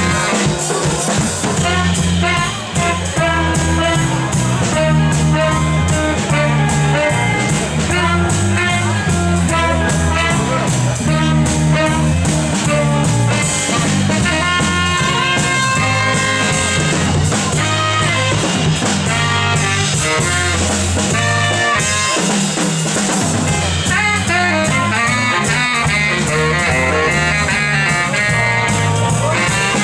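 A live band playing an up-tempo number with drum kit, bass line, guitar and a horn section, in a jazzy, bluesy style.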